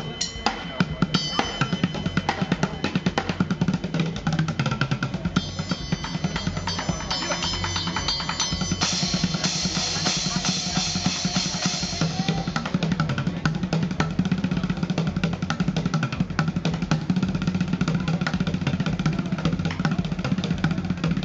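Bucket drumming: fast, dense drumstick rhythms on upturned plastic five-gallon buckets and a metal pot, with cymbal hits. A cymbal rings out for a few seconds near the middle.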